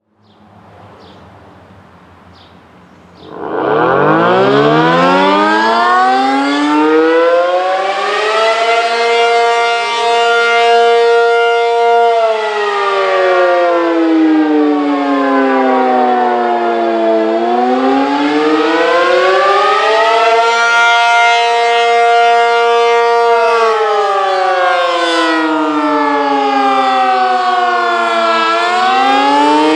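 ACA P-50 outdoor tornado warning siren winding up about three seconds in and climbing to full pitch. It then sounds the attack signal: a slow wail whose pitch sinks and climbs again, each cycle about ten seconds long.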